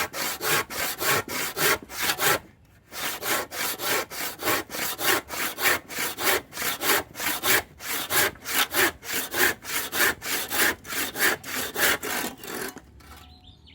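Kapusi 18-inch hand saw cutting through hardwood with fast, rhythmic back-and-forth strokes. There is a brief pause about two seconds in, and the sawing stops about a second before the end, when faint bird chirps can be heard.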